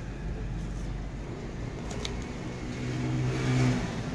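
A motor vehicle engine running steadily in the background, growing louder about three seconds in, with a single light click about two seconds in.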